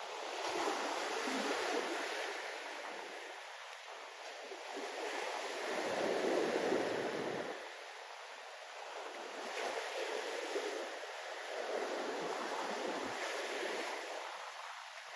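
Sea surf: waves rolling in and breaking on the shore, the wash swelling and fading every few seconds, with the biggest wave about six seconds in.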